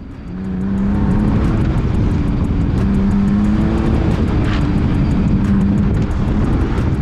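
BMW E46 330Ci's 3.0-litre straight-six, fitted with an M50 intake manifold, pulling hard through an autocross run. It gets loud about half a second in, then the engine note climbs and drops several times as the driver works the throttle and gears.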